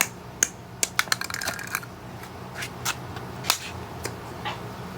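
Old light bulb being struck to break it: a run of sharp clicks and knocks, densest and most rattly between one and two seconds in, with a few single knocks after.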